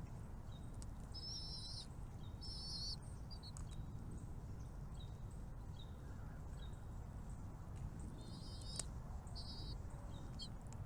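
Small birds at a nest chirping: two pairs of short, high, quavering chirps, one pair near the start and one near the end, with faint short peeps between them, over a steady low rumble.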